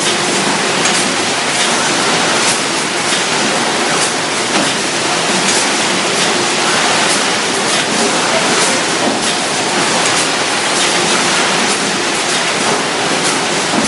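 Steady, loud industrial machinery noise from a robotic bag palletizing line and its conveyors running, with light clattering now and then.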